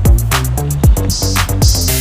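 Electronic background music with a steady kick-drum beat and a bass line.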